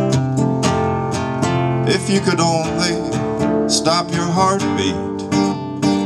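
Acoustic guitar strummed in a steady rhythm, with chords ringing on between strokes. Twice near the middle a brief wavering, gliding sound rises over it.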